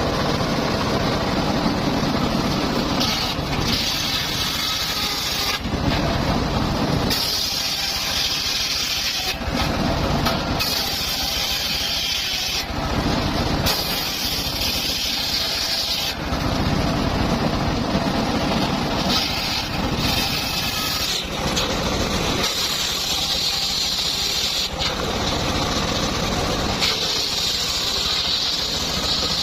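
Sawmill circular saw running steadily, making repeated cuts through timber: each cut lasts two to three seconds and brings a loud hiss of sawing over the machine's low running sound.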